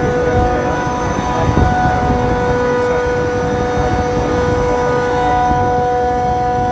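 Rooftop air-conditioning units running: a steady machine hum with a held drone of several even tones over a low rumble.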